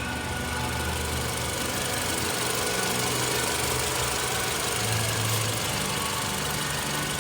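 Toyota Camry 2.4-litre four-cylinder engine with 169,762 km on it, running steadily.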